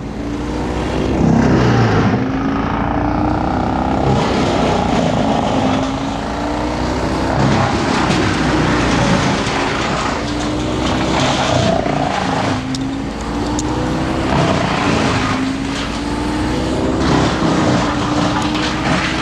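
Gas chainsaw running under load, its engine pitch repeatedly rising and dropping every few seconds as it cuts, over a constant rasp of noise.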